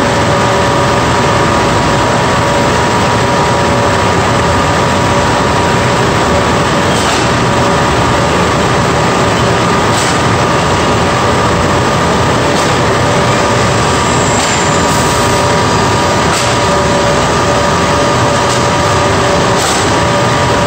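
Textile dyeing machinery running with a loud, steady mechanical din and a constant hum, while fabric is wound off the machine over a winch reel. A few light clicks come through at scattered moments.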